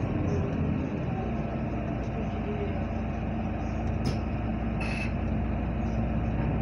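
Cabin sound of a Heuliez GX427 articulated bus under way: a steady engine and road drone with a low hum. Two brief sharp sounds come about four and five seconds in, the second with a short high squeak.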